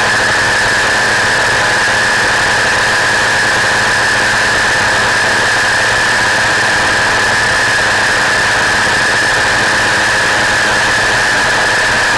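Gyroplane in flight, its engine and propeller running steadily, with a steady high whine over a wash of wind noise on the outside-mounted microphone.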